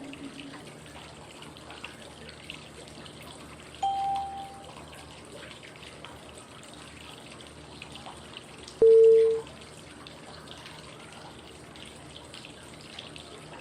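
Steady flowing-water white noise with two short pitched cue tones five seconds apart, marking the steps of 5-5-5 breathing: a fainter, higher tone about four seconds in, and a louder, lower one about nine seconds in.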